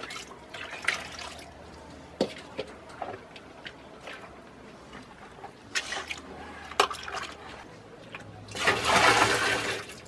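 A basin of cow-dung, cow-urine and water slurry is tipped into a plastic drum: a loud gush of liquid lasting just over a second near the end. Before it there are scattered light knocks and splashes as the slurry is mixed by hand and the basin is handled.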